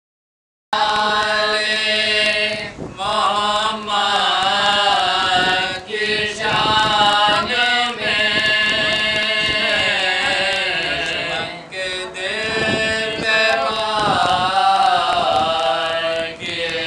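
Men reciting a marsiya, the Urdu elegy, in a melodic chant with long held, wavering notes and no instruments. The sound drops out for a moment at the very start.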